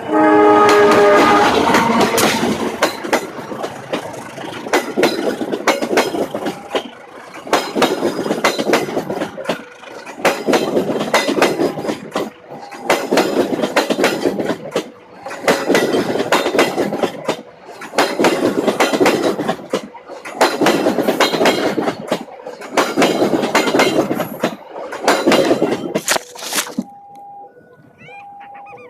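Train passing close by, its wheels clattering over a rail joint: the clacking swells and dips about every two and a half seconds as each carriage's wheels cross the joint. A short horn-like tone sounds at the start, and the noise stops suddenly near the end.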